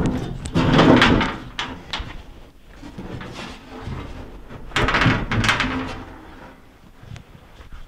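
Sheet-metal cowl of a 1951 John Deere MT tractor scraping and clunking as it is worked loose and lifted, in two bursts, about a second in and about five seconds in, with quieter rattling between.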